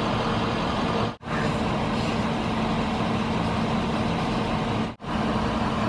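Steady drone of idling vehicle engines with a constant low hum. The sound cuts out sharply for an instant twice, about a second in and near the end, at edits.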